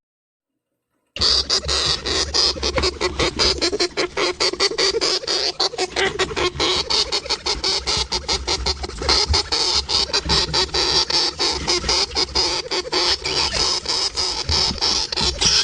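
Rapid, dense crunching clicks of a small pet animal gnawing, starting about a second in after a short silence.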